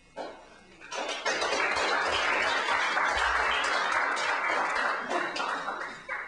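Audience applauding, a short spatter at first that swells into full clapping about a second in and fades out near the end.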